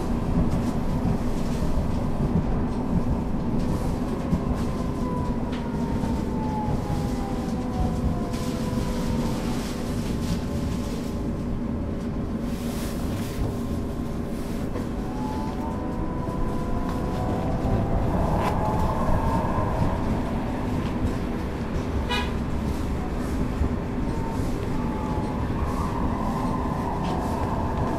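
Duewag/Kiepe B80D light-rail car running, heard from inside the passenger compartment: a steady rumble of wheels on track under steady electric hums. A motor whine falls in pitch about four seconds in and rises again from about sixteen seconds, with a single sharp click about twenty-two seconds in.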